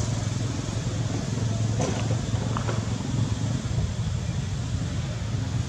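A motor vehicle's engine running steadily nearby, a low even rumble, with a few faint clicks about two seconds in.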